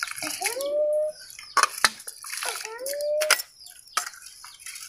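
Water with rice poured and sloshed from a steel bowl into a cooking pot, with a few sharp clinks of small steel utensils. A child's drawn-out voice rises and holds twice.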